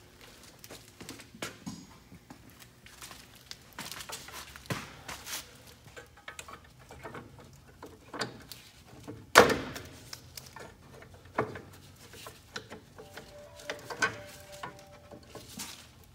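Scattered metallic clicks, taps and scrapes of a screwdriver prying at the return spring and keeper of a semi truck's Eaton drum-brake shoe, with one loud metal clank about halfway through.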